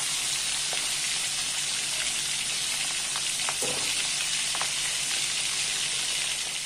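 Pieces of milkfish deep-frying in hot oil in a steel wok: a steady sizzle with a few small pops, as the fish is fried until lightly browned.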